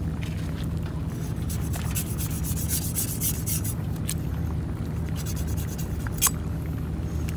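Knife sawing and scraping through a stingray's tough skin and flesh. The rasping strokes come in clusters about two seconds in and again around six seconds, over a steady low hum.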